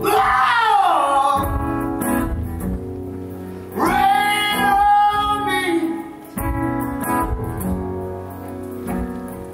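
Live acoustic guitar performance: ringing chords underneath two long, wailing, gliding high tones. The first comes right at the start and falls away over about a second and a half; the second rises about four seconds in, is held, and falls off around six seconds.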